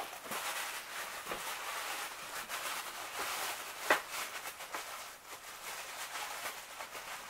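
Handling noise while unpacking: faint rustling and small ticks, with one sharp knock about four seconds in.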